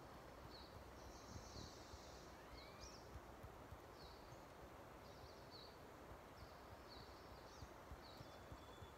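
Quiet woodland ambience in which a small bird repeats a short, high chirp every second or so over a faint steady hiss.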